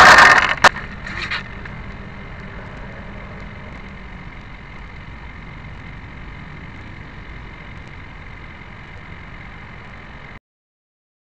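Loud rush of the twin 90 mm electric ducted fans and wind over the nose-mounted camera, cutting off abruptly within the first half-second. A single sharp click follows, then a faint steady hum that stops dead near the end.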